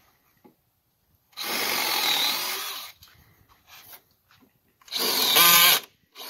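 DEWALT 20V MAX brushless compact cordless drill boring through a wooden retaining-wall timber in two bursts: a run of about a second and a half, then a shorter, louder one near the end.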